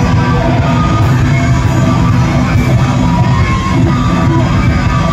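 Live rock band playing loudly, with electric guitars over a heavy bass.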